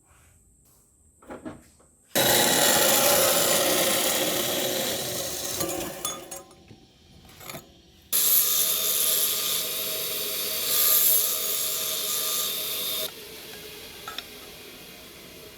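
A power tool working on material in two loud bursts of about four and five seconds, each starting and stopping abruptly, with a quieter steady hum after the second.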